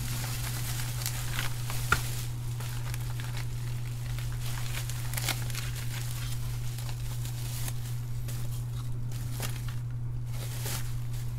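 Bubble wrap crinkling and rustling as hands unwrap and handle plastic-wrapped parts, with scattered crackles and one sharper click about two seconds in, over a steady low hum.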